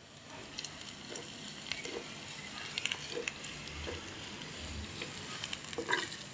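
Sliced onions sizzling as they fry in hot oil in a clay pot, being browned. A spatula stirring them gives occasional light scrapes and taps against the pot.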